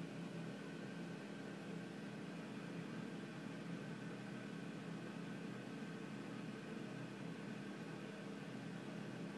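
Steady low machine hum with a faint hiss.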